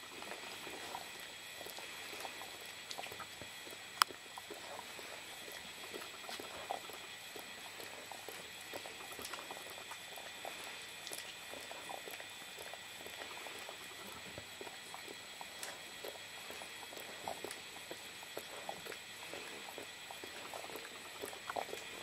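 Wet licking and mouthing by a mother dog and her young puppy: a soft continuous crackle of small smacks and clicks, with one sharper click about four seconds in.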